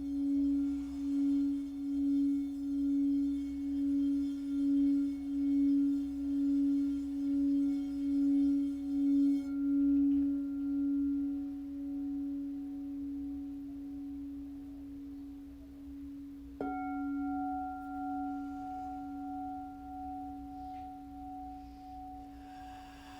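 Singing bowl ringing with a slow, pulsing wobble, slowly fading. About two-thirds of the way through, a second strike brings in a higher ringing tone over it.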